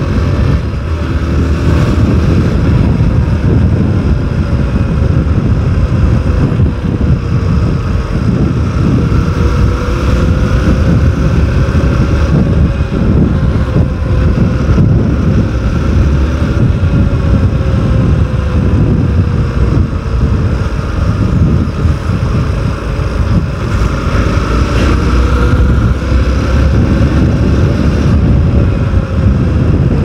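Motorcycle engine running at a steady cruise while riding, its tone drifting slowly up and down with speed, over a heavy low rumble. Picked up by a phone microphone held close to the rider's mouth.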